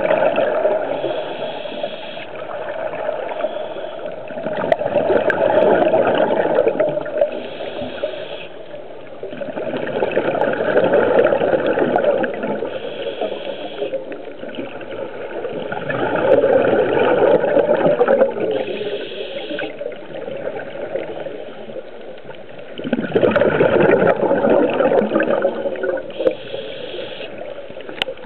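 Scuba breathing heard underwater: exhaled air bubbling out of a diver's regulator in a gurgling rush about every five to six seconds, with a shorter, higher hiss in between.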